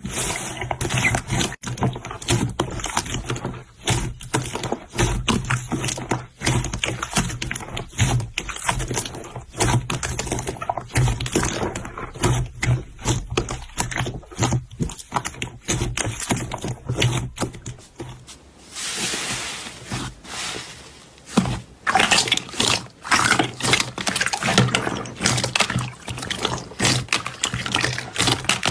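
Slime being squeezed and worked by hand: a dense run of wet clicks and pops, with a short hissing rush about two-thirds of the way through.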